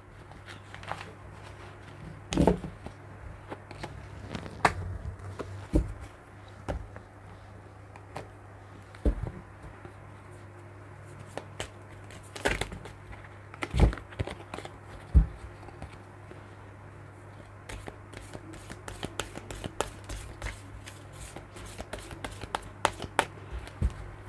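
A deck of tarot cards being gathered up and shuffled by hand, with scattered taps and slides of cards, and a denser run of quick card clicks in the last several seconds.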